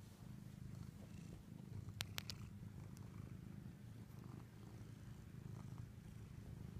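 Domestic cat purring steadily, a low, fast, even rumble, with two sharp clicks about two seconds in.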